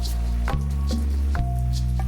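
Slow ambient relaxation music: a low held synth pad that shifts chord twice, with scattered soft plucked notes, layered with the ticks of water drops dripping.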